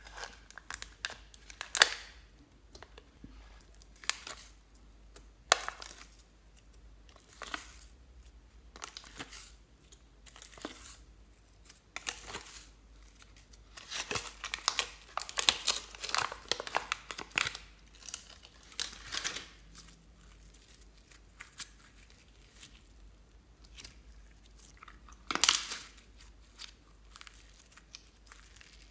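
Sticky crackling and tearing as glitter slime is peeled out of a flexible plastic flower-shaped mold, with the plastic tray crinkling. The crackles come irregularly, thickest in a run through the middle, with one loud one near the end.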